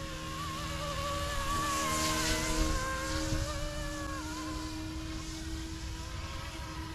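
Small electric RC helicopter, a YXZNRC F09 Black Hawk, running in flight: a steady whine from its motor and rotor blades, flown in normal mode rather than idle-up. It grows louder about two seconds in as it passes nearer, then eases off, the pitch wavering slightly.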